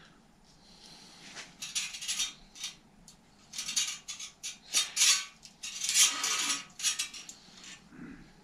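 Small metal parts clicking and clinking irregularly in the fingers: the shift cable and its fixing sleeve for a Torpedo three-speed hub being handled and threaded.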